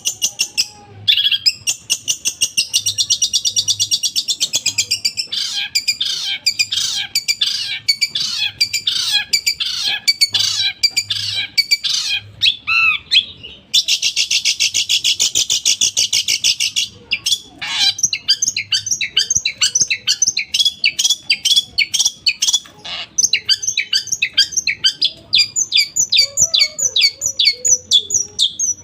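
Long-tailed shrike (cendet) singing a loud, rapid-fire song: long strings of fast repeated high notes and trills with short breaks, a shrike's version of other birds' songs such as the house sparrow's.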